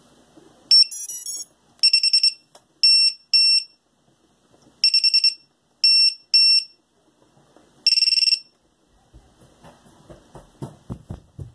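JHE42B finder buzzer on a quadcopter sounding a series of high-pitched electronic beeps: a quick run of short pips about a second in, then groups of long and short beeps. It is powered up from the battery just plugged in, which shows the newly installed buzzer works. Near the end there are a few soft low knocks.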